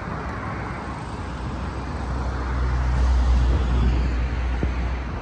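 Road traffic noise: a steady hum with a low rumble that grows louder about two seconds in.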